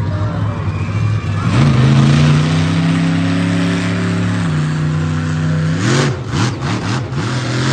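Monster truck engine revving up and held at high revs, dropping slightly in pitch about halfway, then climbing again and breaking into several short sharp bursts near the end.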